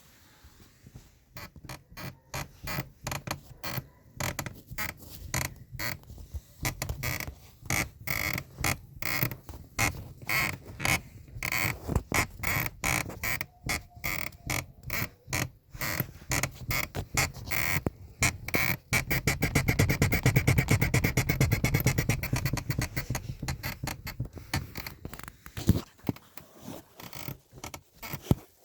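Toyota Camry XV30 driver's seat creaking over and over, with short creaks a second or so apart. They come faster and run together into a louder stretch of a few seconds past the middle, then thin out near the end.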